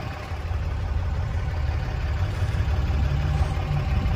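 Ram 2500's 6.7-litre Cummins turbo-diesel inline-six idling, a steady low rumble.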